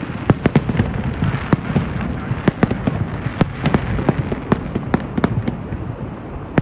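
Fireworks going off in a rapid, irregular string of sharp bangs and pops, several a second, over a continuous low rumble of more distant explosions.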